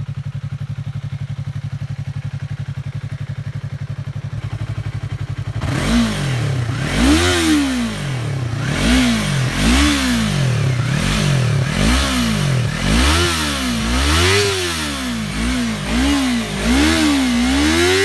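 Yamaha YZF-R3's parallel-twin engine through an Arrow Pro-Race full exhaust system with no muffler, idling steadily, then from about six seconds in revved in a quick series of about a dozen throttle blips, each rising and falling in pitch.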